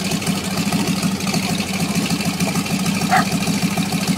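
Radial engine of a vintage military trainer aircraft idling unevenly with a miss, a sign that not all its cylinders are firing yet. There is a brief higher-pitched chirp about three seconds in.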